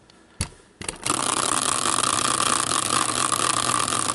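A hand-spun caster wheel on a wooden base, used as a team randomizer wheel: a single sharp knock about half a second in, then from about a second in the wheel spins on its axle with a steady, even whirring.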